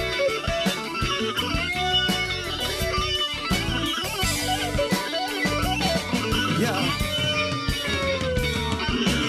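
Music with an electric guitar playing over a steady beat, without singing or rapping.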